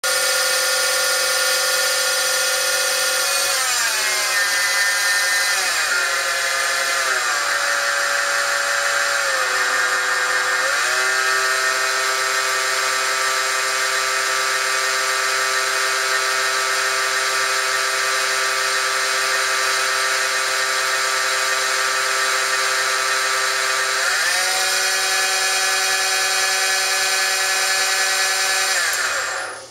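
Hardinge Omniturn lathe spindle running, its drive motor giving a high whine. The pitch steps down several times in the first ten seconds, holds steady, rises once near the end, then winds down to a stop.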